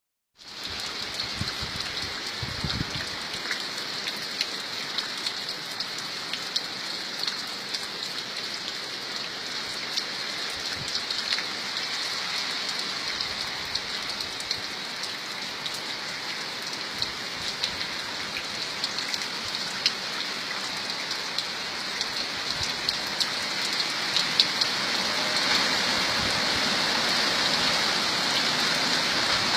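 Rain falling steadily: a continuous hiss scattered with many distinct drop ticks, gradually growing louder.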